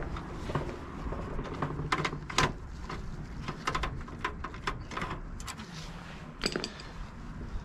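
Scattered small clicks, taps and scrapes of hands and a screwdriver working a part loose inside a sheet-metal desktop PC case.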